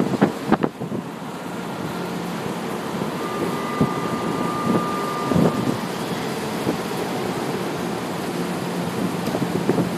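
Steady underground-platform din around a São Paulo Metro Line 1 train standing at the platform with its doors open. A few knocks come in the first second, and a thin, steady high whine sounds for a couple of seconds in the middle.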